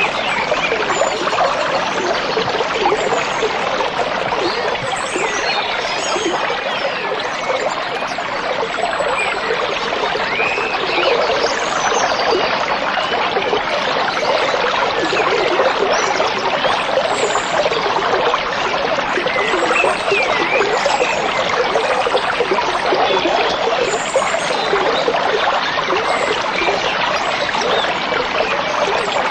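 Steady rushing and trickling of a stream, with scattered short bird chirps above it.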